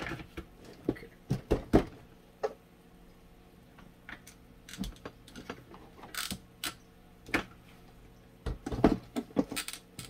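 Plastic clicks, taps and knocks of a mini box fan's housing halves being pressed together and handled, irregular, with a louder cluster of knocks near the end as the fan is turned over.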